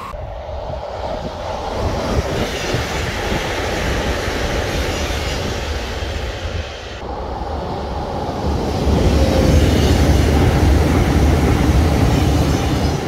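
KTX-Eum high-speed electric multiple-unit train passing at speed: a steady rush of wheels on rails over a deep rumble. About seven seconds in, the sound cuts to a second, closer pass that grows louder, with heavier rumble, and stops abruptly at the end.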